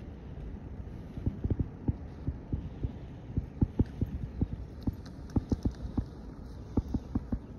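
Footsteps in snow: irregular soft thumps, two or three a second, starting about a second in.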